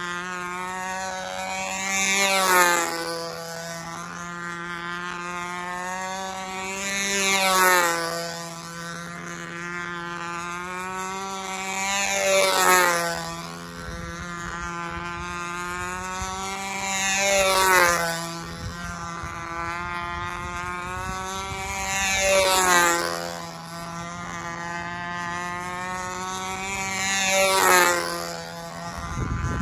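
Control-line model airplane engine running steadily as the plane flies laps on its lines. About every five seconds it swells loudly and its pitch drops as the plane sweeps past, six passes in all.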